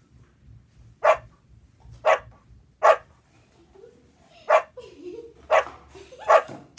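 A dog barking six times in short, single barks, roughly a second apart with a longer pause in the middle.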